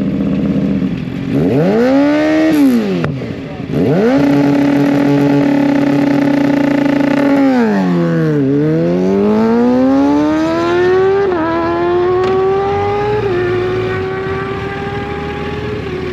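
Motorcycle at a hill-climb start line revving in two quick blips, then holding steady high revs. About eight seconds in the revs dip as the clutch bites, and the bike launches and accelerates away with the pitch climbing through two upshifts, growing fainter.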